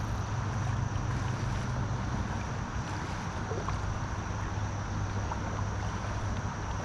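Steady rush of flowing river water, with a low rumble of wind on the microphone.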